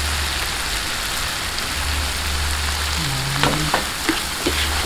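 Tomatoes, onion and garlic sautéing in hot oil in a nonstick frying pan, sizzling steadily, with a few sharp clicks of the stirring spoon against the pan in the last couple of seconds.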